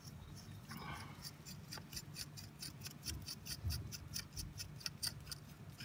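Ratchet wrench clicking in a quick, even run, about six or seven clicks a second, starting about a second in, as an 8 mm deep socket unscrews a diesel engine's glow plug.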